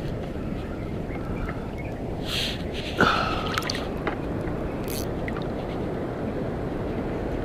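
Steady wash of wind and shallow sea water around a wading angler, with a short sharp splash about three seconds in and a few small clicks after it.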